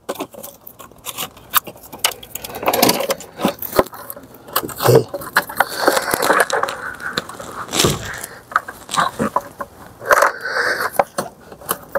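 Irregular plastic clicks, knocks and scraping as a SAM unit fuse and relay box and its wiring looms are pushed and worked back into their housing by gloved hands.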